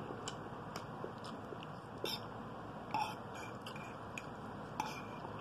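A person chewing a mouthful of egg noodles with soft wet mouth clicks, and a few sharper clicks about two, three and nearly five seconds in, over a steady background hiss.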